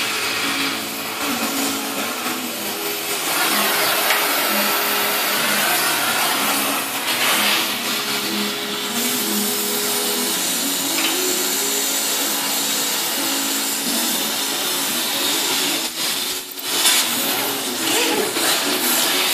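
Cutting torch hissing steadily as it cuts through the steel of a car's front wheel hub. Near the end it briefly breaks off, then a sharp knock follows.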